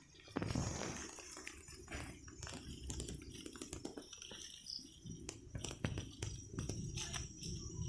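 Hands tying a durian seedling's stem to a bamboo stake: scattered small clicks and rustles of leaves, twigs and the tie being wrapped and pulled. Under them runs a steady high hum of insects.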